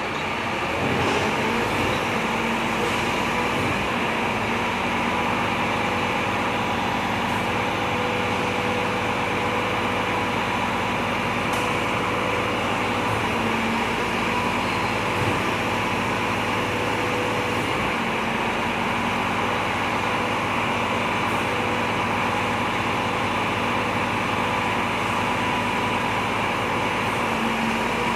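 Steady running hum of a vehicle with a constant whine, unchanging throughout.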